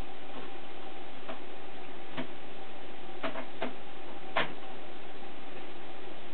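A handful of light, sharp clicks and knocks, about five scattered through the stretch, as hands work inside an open Mac Pro's aluminium tower case, over a steady background hiss with a faint hum.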